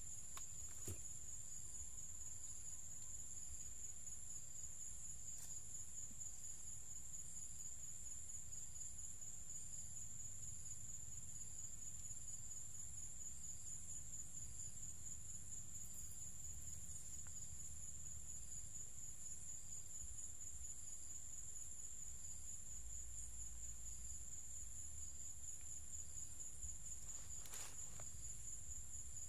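Insects trilling in a steady, high-pitched chorus, with a fainter insect call pulsing about once a second beneath it. There are a few faint knocks now and then.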